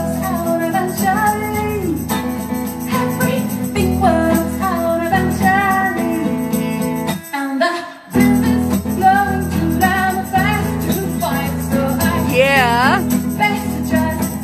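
A woman singing a slow song to her own acoustic guitar, briefly cutting out a little past halfway. Near the end she holds one note with wide vibrato.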